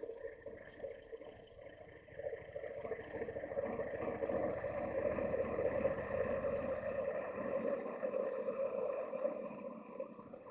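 Yamaha Ténéré 700's 689cc CP2 parallel-twin engine running at low road speed. It grows louder about two seconds in and eases off again near the end.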